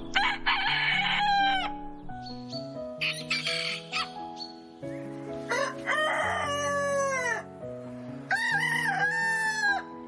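Roosters crowing: three long cock-a-doodle-doos, each dropping in pitch at the end, with a shorter call between the first two.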